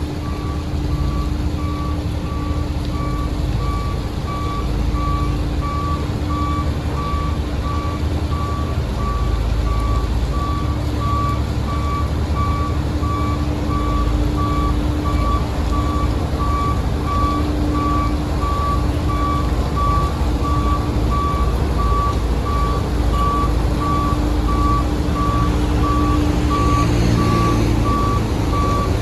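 A heavy construction machine's back-up alarm beeping steadily at one pitch, evenly spaced, over a diesel engine running at a constant pace.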